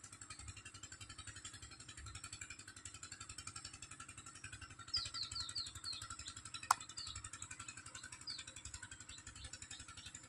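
Quiet outdoor ambience: a steady low rumble, with a small bird giving a quick run of falling chirps about halfway through and a few more after. A single sharp click, the loudest sound, comes just after the chirps.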